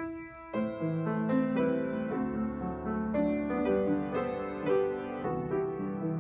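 Slow, gentle keyboard music: held chords with a melody moving above them, a single note followed by the full harmony about half a second in.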